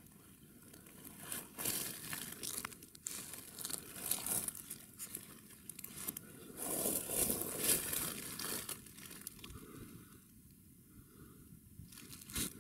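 Irregular rustling and crinkling that comes and goes, loudest a little past the middle, with one sharp click near the end.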